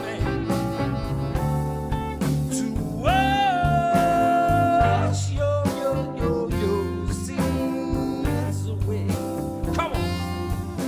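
Blues band playing live, with saxophone, electric guitar, bass and drums over a steady beat. A long held note slides up about three seconds in and is held for about two seconds.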